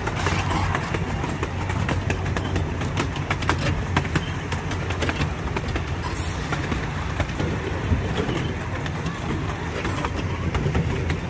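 Miniature park train running on its track, heard from aboard a passenger car: a steady low rumble from the cars rolling, with frequent sharp clicks and rattles from the wheels on the rails.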